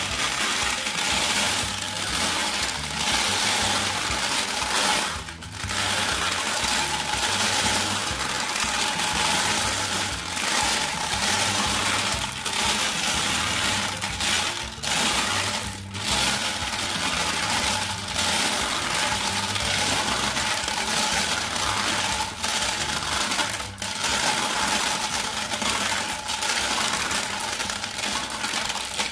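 Glass marbles clattering and rattling inside a Bruder Scania toy cement mixer's plastic drum as the drum is turned, pouring out down the plastic chute: a dense, continuous rattle with a few brief lulls.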